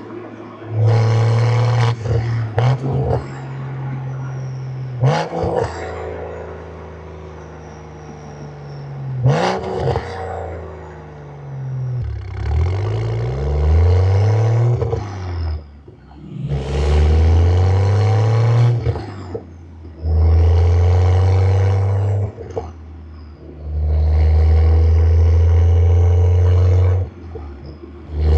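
Stage 2 tuned manual Toyota Supra's engine accelerating hard again and again, revs climbing and then dropping at each gear change, with quieter stretches off the throttle in between. It is tuned without exhaust burbles on lift-off.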